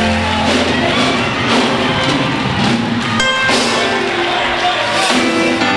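Loud, upbeat church praise music with a steady drum beat about once a second, with voices faintly singing and shouting along.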